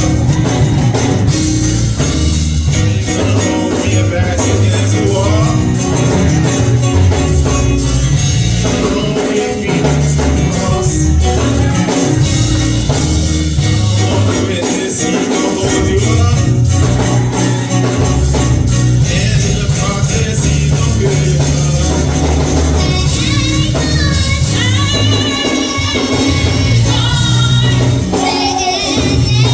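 Gospel music with a heavy bass line and steady percussion, and voices singing over it, most clearly in the last few seconds.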